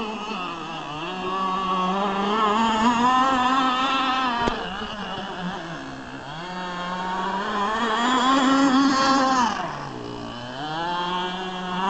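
Radio-controlled speedboat's motor whining at high speed, its pitch and loudness rising and falling with the throttle. It drops off twice, around six seconds and again near ten seconds, before winding back up.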